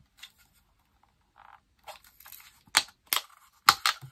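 Clear plastic packaging being handled and pulled at: faint crinkling, then a handful of sharp plastic clicks in the second half.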